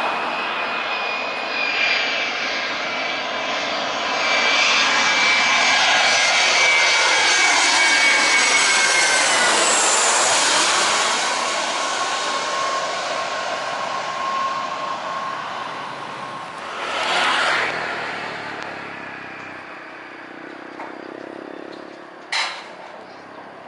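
Boeing 737 jet airliner on final approach passing low overhead: a steady jet-engine whine, loudest at the middle, that drops in pitch as the aircraft goes by and then fades. A brief rush of noise comes as it fades, and a sharp click near the end.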